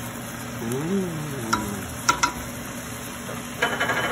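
Curry powder being tipped from a ceramic bowl onto raw chicken in a stainless steel pot, with two or three sharp, ringing clinks against the pot around the middle, over a steady low hum. Near the end comes a short clatter as a wooden spoon goes into the pot.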